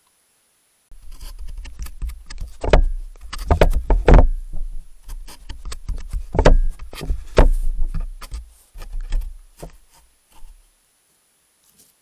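A badger examining the wildlife camera up close: a run of knocks, scrapes and rubbing bumps on the camera's body, with a heavy low rumble. It starts about a second in and dies away near the end.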